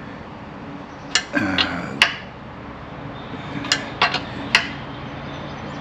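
Hand tools clinking and tapping on metal: about five sharp clicks and knocks, one ringing briefly, while a Teflon-taped radiator fitting is tightened by hand.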